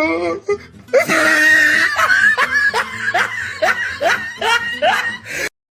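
A laughing meme sound effect: a voice laughing in a string of rising bursts, about two a second, that cuts off suddenly near the end. It is preceded by the tail of a wavering sung voice.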